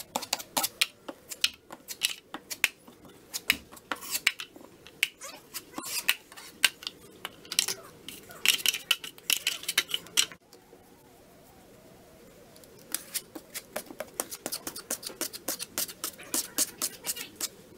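Steel drywall knife scraping and clicking against a metal mud pan as joint compound is worked and loaded: a quick, irregular run of sharp scrapes. After a pause of about two seconds comes another rapid run of scraping strokes as the compound is spread over the patch on the wall.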